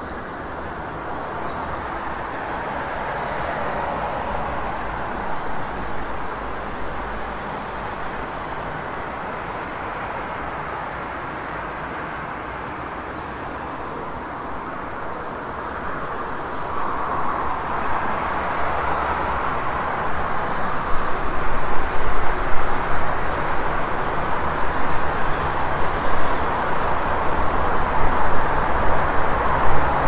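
City street traffic: a steady wash of passing vehicles and engine noise. About halfway through a low engine hum comes in and the traffic grows louder and more uneven.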